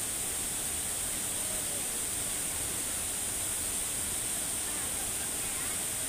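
A waterfall plunging into a rock pool: a steady, even rush of falling water.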